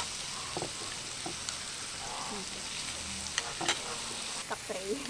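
Beef sizzling steadily on a hot dome grill pan over a portable gas stove, with a few sharp clicks of metal tongs and scissors against the pan.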